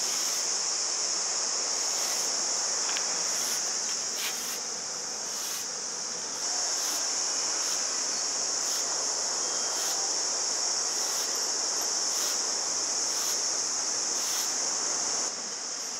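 A steady high-pitched chorus of insects over a constant rushing hiss. The insect sound drops away near the end.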